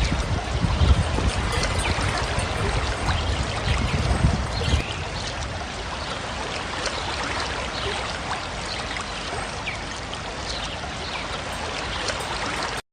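Rushing water, with a heavy low rumble for the first five seconds. About five seconds in, the sound changes suddenly to a lighter, steady water sound without the rumble, which cuts off abruptly just before the end.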